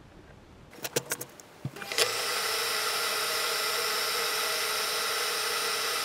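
A few light clicks and taps, then about two seconds in a small motor starts abruptly and runs with a steady whirring drone.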